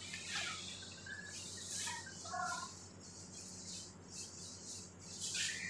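Faint soft swishes of hands rubbing palm against palm and between the fingers in a hand-hygiene rub, coming again and again, with a few short chirps about two seconds in.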